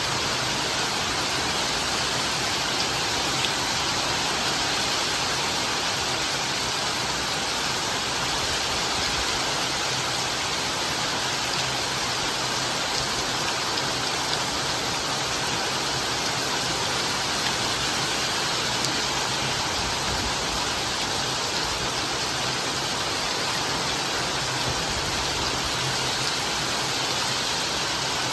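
Rain falling steadily: an even, unbroken hiss with no single drops or thunder standing out.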